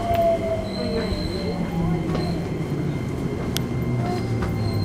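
Keikyu New 1000 series train's Toyo IGBT-VVVF inverter whine falling in pitch as the train brakes and slows, over wheel and rail running noise, heard from inside the passenger car.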